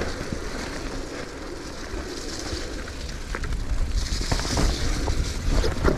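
Scott Ransom e-mountain bike being ridden over a slick, muddy trail: tyre noise through the mud under a steady low rumble, with scattered knocks and rattles from the bike. A hiss swells for a second or so around four seconds in.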